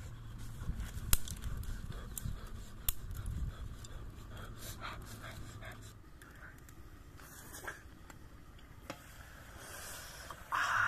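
Small wood cooking fire crackling with scattered sharp ticks and snaps; a crow caws near the end.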